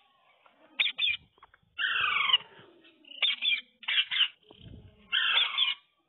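Rose-ringed parakeet calling in short, harsh screeches, with one longer call about two seconds in that falls in pitch.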